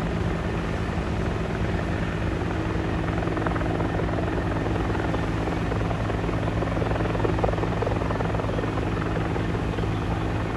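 Rescue helicopter in flight: a steady rotor and engine drone with a low, even hum.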